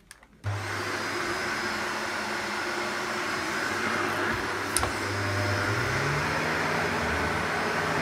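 Shark Anti Hair Wrap Powered Lift-Away AZ950UK upright vacuum cleaner switching on about half a second in and running steadily on carpet. Its hum steps up slightly in pitch about six seconds in. The owner calls it quiet.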